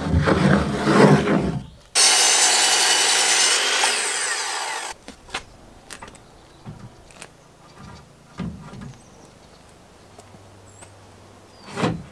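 A power tool runs with a high whine for about three seconds, then cuts off abruptly. After it come scattered light knocks and a thump of wooden posts being handled and set on end.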